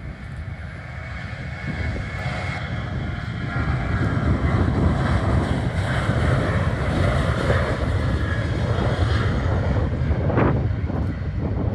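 Boeing 737-800's twin CFM56-7B turbofan engines at takeoff thrust as the jet makes its takeoff roll. A deep, rumbling jet noise grows louder over the first four seconds and then stays loud.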